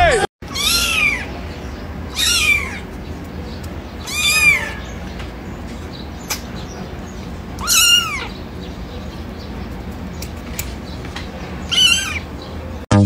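Young kitten meowing: five high, thin mews spaced a second and a half to four seconds apart, each rising then falling in pitch, over a faint steady background hum.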